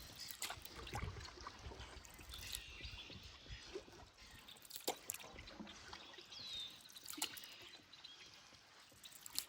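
Canoe being paddled quietly: water trickling and dripping off the paddle, with a few light knocks of the paddle against the canoe and a couple of faint high chirps.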